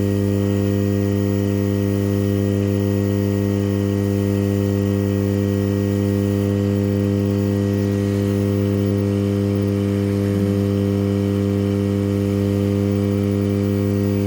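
Hot air rework station running steadily while heating a phone board, a constant even hum with no change in pitch or level.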